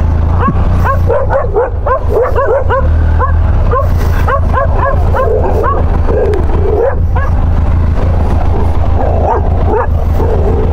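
Dogs barking and yipping in quick, overlapping bursts, densest in the first few seconds and again near the end, over a low steady engine hum.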